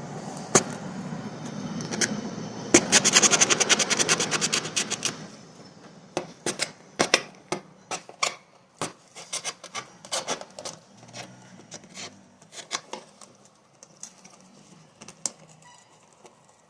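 Cardboard being cut and worked by hand to make a small hole: a quick run of rapid clicks, then scattered irregular clicks and scrapes that grow fainter.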